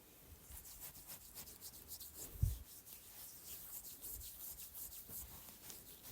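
Facial cream being rubbed in: a run of quick, soft, hissy rubbing strokes, with one low thump about two and a half seconds in.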